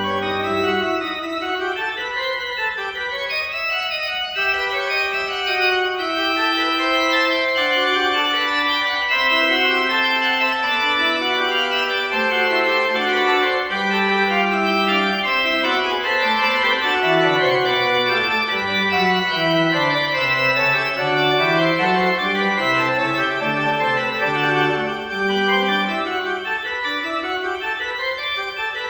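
Church organ playing a piece of music: chains of quick running notes over sustained chords, with a bass line that steps down and climbs back up in the middle.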